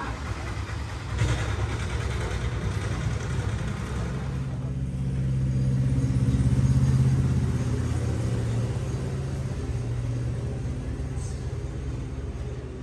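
A motor vehicle's engine running as it passes, with a steady low hum that swells to its loudest about six to seven seconds in and then fades. A short knock comes about a second in.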